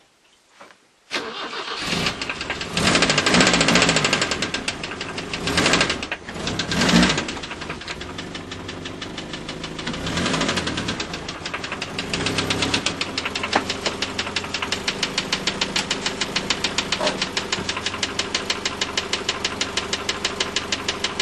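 BMW E30's M10B18 inline-four engine starting about a second in, revved a few times, then running with an even rapid knock: the connecting-rod bearing of the fourth cylinder is worn and the rod is loose on the crankshaft.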